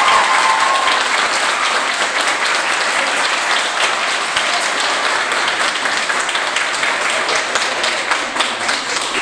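Crowd applauding: dense, steady clapping that eases off slightly toward the end.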